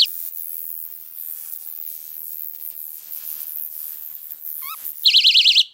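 Bear Gentleman Mini Bee personal alarm sounding its fast-warbling high-pitched shriek. For most of the stretch it is much quieter, then it comes back loud near the end and cuts off suddenly as the pin is pushed back in.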